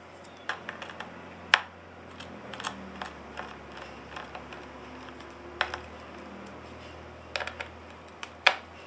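Scattered small sharp clicks and taps of tiny screws and a precision screwdriver against a MacBook's aluminium case as the screws are taken out. The loudest clicks come about a second and a half in and just before the end.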